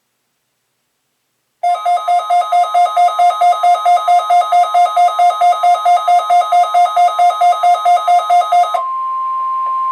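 A weather radio receiver's alert alarm beeping rapidly, about four to five beeps a second, starting about a second and a half in. About a second before the end the beeping stops and the broadcast's steady NOAA Weather Radio warning-alarm tone comes through with a little static.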